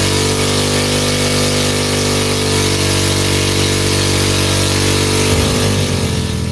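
Motorcycle engine held at steady high revs, with a loud hiss over it; the lower engine note begins to break up near the end.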